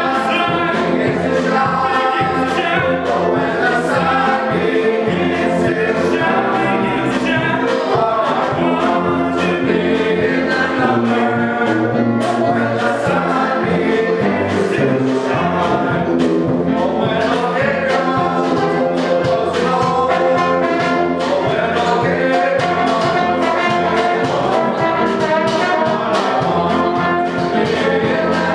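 Small live jazz ensemble of trumpet, saxophones, trombone and tuba playing a tune together, with a drum kit keeping a steady beat.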